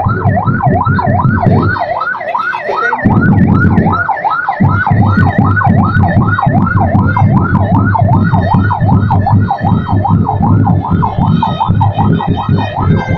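Kia ambulance's electronic siren in a fast yelp, its pitch rising and falling about three times a second, as the ambulance drives slowly past. A low steady rumble runs underneath, dropping out briefly twice near the start.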